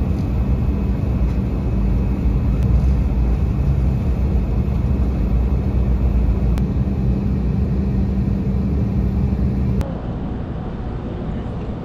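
Cabin noise inside an Embraer 190 jet in descent: a steady rumble of engines and airflow with a low hum. About ten seconds in it cuts off abruptly to a quieter, steady rumble.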